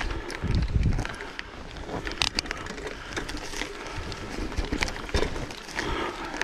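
Wind buffeting the microphone and the rattle of riding over a rough track, with gusts of low rumble in the first second and scattered clicks and knocks.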